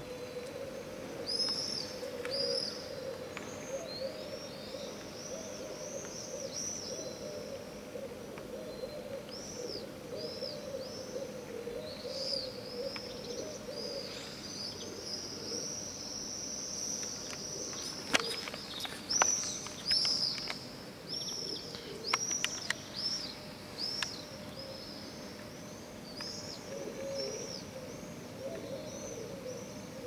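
Birds calling in the open air: many short, high chirps overlapping throughout, over a lower wavering hooting call that repeats for most of the time. A few sharp clicks sound about two-thirds of the way through.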